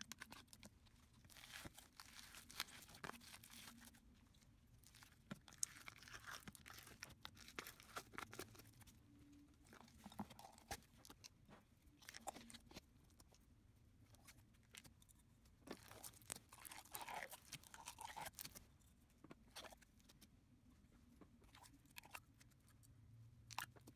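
Slime being squished and stretched by hand, giving faint sticky clicks, pops and crackles in uneven bursts.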